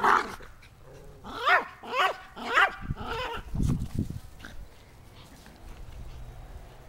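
Yorkshire terrier giving three short, high yips about half a second apart, each rising and falling in pitch, during play over a toy, followed by a few low dull thuds.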